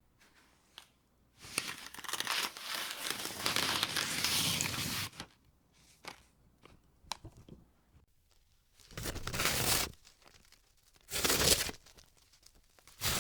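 Paper being torn by hand: one long drawn-out rip, a few small crackles, then two shorter, sharper rips.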